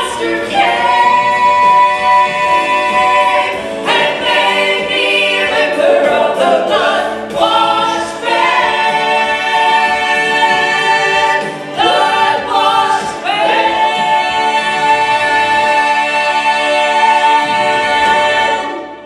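A gospel vocal trio of two women and a man singing together through microphones, with long held notes. The song's final note is held for several seconds and then cut off shortly before the end.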